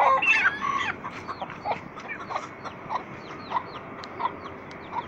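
Chickens squawking and clucking as a rooster chases a young hen: a loud squawk in the first second, then a run of short, repeated clucks.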